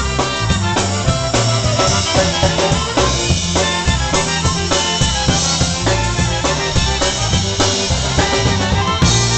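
Live polka band playing a polka: trumpet and clarinet over a drum kit keeping a steady beat.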